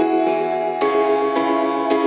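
Ambient intro music: held chords with new notes coming in every half second or so, the chord changing just under a second in.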